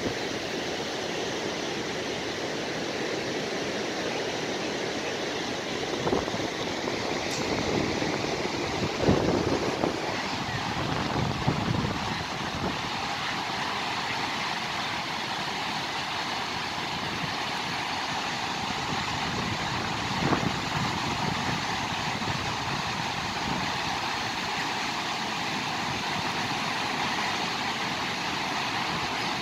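Gokak Falls in flood: a steady roar of a large volume of water pouring over the falls. There are a few brief louder low bumps in the middle.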